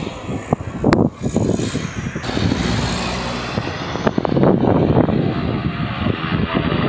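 Propeller aircraft engines running, heard as an uneven rumble mixed with wind noise on the microphone. There is one sharp click about a second in, and the high hiss drops away a little after two seconds.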